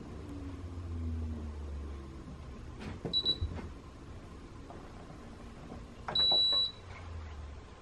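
Sharp FU-T51CX air purifier's control panel beeping as its buttons are pressed: a short high beep about three seconds in when a mode button is pushed, then a longer beep at about six seconds when the power button is pushed. A low hum runs underneath.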